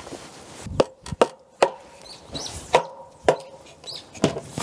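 A heavy wooden carpenter's mallet strikes timber in six sharp knocks, irregularly spaced in pairs. Each knock has a short ringing note.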